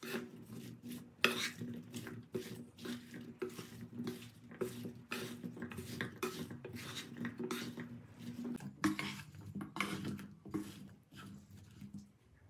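Wooden spatula stirring and tossing chunks of broccoli, carrot and potato in a nonstick pan, with irregular scraping and knocking strokes against the pan, a few a second, over a faint steady hum.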